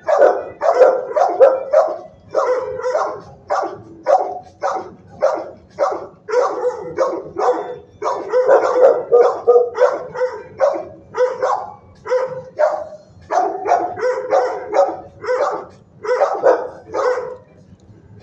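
Shelter dogs barking over and over, two or three barks a second with short pauses, stopping near the end.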